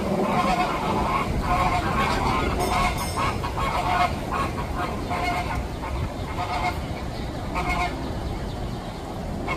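A flock of American flamingos honking, many short goose-like calls overlapping and repeating throughout.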